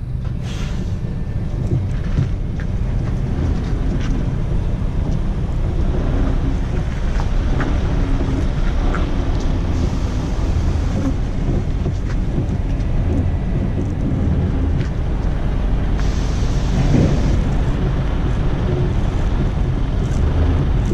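Scania R450 truck on the move, its straight-six diesel engine and the road giving a steady low rumble.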